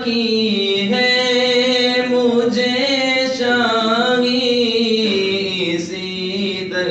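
A man singing a devotional Sufi manqabat, drawing out long held, ornamented notes; his pitch drops about five seconds in.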